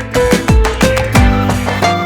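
Background music with a steady beat: a fast, Latin-flavoured rhythm of plucked notes and low drum hits.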